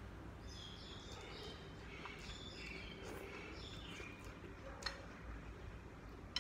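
Faint bird chirping for a few seconds, then a single sharp click about five seconds in.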